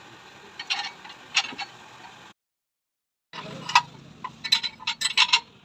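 Metal tools and motorcycle rear shock absorber parts clinking and knocking during hands-on repair work, with sharp ringing taps. The sound cuts out completely for about a second near the middle, then the clinking resumes more densely.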